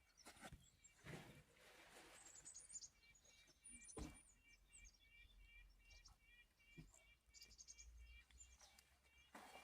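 Small birds chirping faintly, one giving a long series of short repeated notes and others adding higher, quicker chirps, with a few soft knocks.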